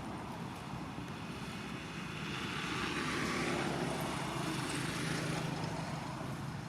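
A passing engine, its low hum and rushing noise swelling for a few seconds in the middle and then easing off.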